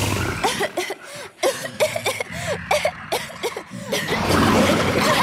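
Cartoon pony coughing in a cloud of dragon smoke: a quick string of short coughs, then a rushing noise swells near the end.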